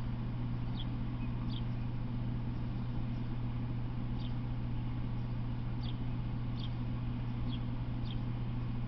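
A small bird repeating short, high, downward-sliding chirps, irregularly, about every second with a pause in the middle, over a steady low hum.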